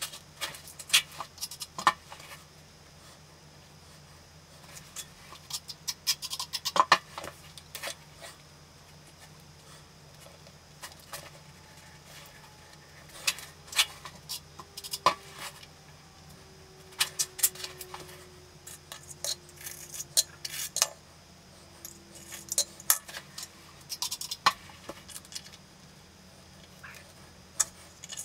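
Mosaic floor tiles clicking and tapping against one another and the floor as they are set by hand into thinset, in irregular bursts of sharp clicks with quiet gaps between.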